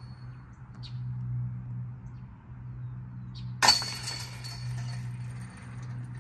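A disc striking a metal disc golf basket once, a little past halfway: a sharp clang with a ringing tail that fades over about two seconds. A low steady hum runs underneath.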